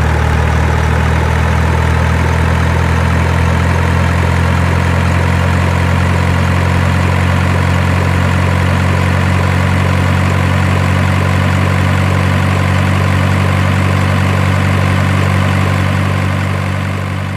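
Truck engine idling steadily and evenly, fading out near the end.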